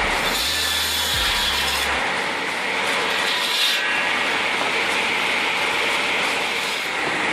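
Firewood-processing machinery working through wood: a loud, steady mechanical clatter and rubbing of wood. The sound changes character about two seconds in and again a little later.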